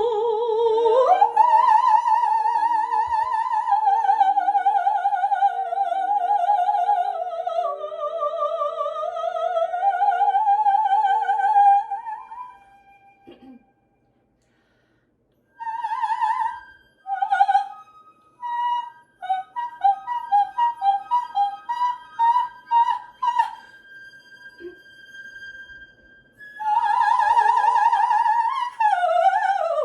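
Operatic soprano singing a coloratura passage: a long wavering line with wide vibrato, a brief break, then a run of quick detached notes, and near the end a return to sustained high singing.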